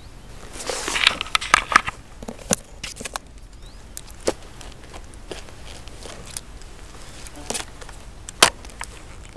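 Rustling and crackling of grass and plant stems being brushed, with sharp clicks: a dense cluster about a second in, then scattered single clicks, one loud near the end.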